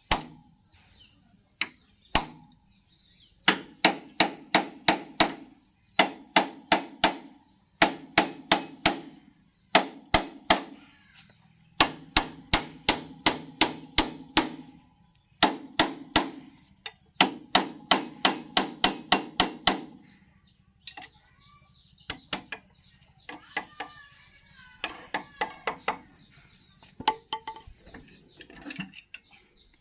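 Hammer blows on a steel tool set against a John Deere tractor's PTO housing, struck in quick runs of several a second with short pauses between runs. Lighter, sparser taps follow in the last third.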